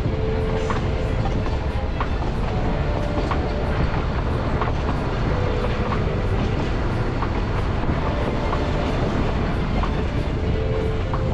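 Nilgiri Mountain Railway train running, heard from on board: a steady low rumble with scattered clicks of the wheels over the rail joints.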